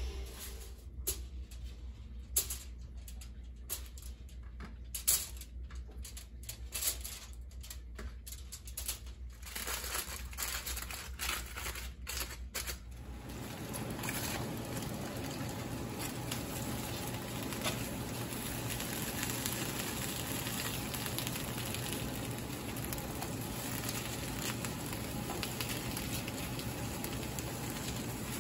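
Aluminium foil crinkling and rustling, with scattered sharp clicks, as it is handled on a stovetop griddle. About halfway through this gives way to a steady hiss of tomatoes and green chiles roasting on the foil-lined griddle, with an occasional click of the tongs.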